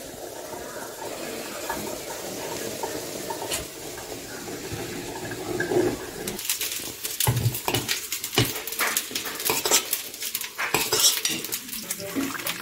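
Grated carrots frying in butter in a cooking pot while a spoon stirs and scrapes them, over a steady sizzle. From about halfway in, the spoon clinks and knocks against the pot in quick, irregular strikes.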